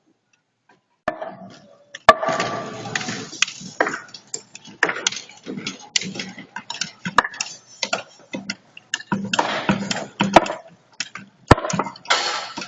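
Construction site work noise: irregular sharp knocks and clinks among bursts of rustling noise, starting about a second in.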